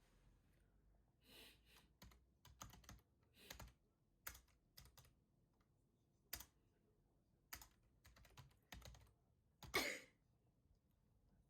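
Quiet typing on a computer keyboard: scattered key clicks at an uneven pace. About ten seconds in comes one longer, louder noise, the loudest moment.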